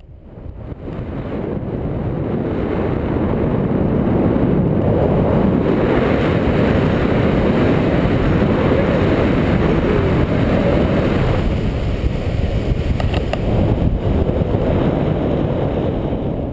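Loud wind rushing over the camera microphone on a tandem paraglider in a steep banked turn, building over the first two seconds and then holding steady.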